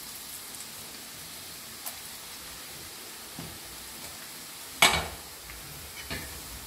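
Boondi (drops of besan batter) sizzling as they fry in hot desi ghee, a steady hiss. A few light knocks, with one sharp loud knock about five seconds in.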